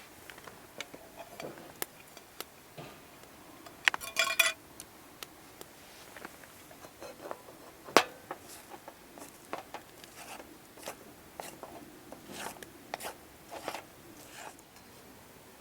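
Camp cookware and utensils being handled: scattered light taps and clicks, a brief ringing clink of metal or glass about four seconds in, and one sharp click about eight seconds in.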